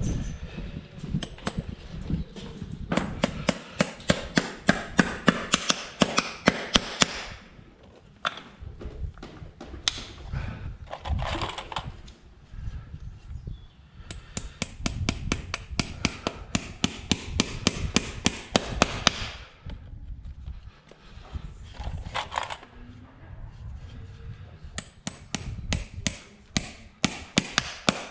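Farrier's hammer striking a horseshoe in three runs of quick, light blows, about four or five a second, each run with a thin high ring.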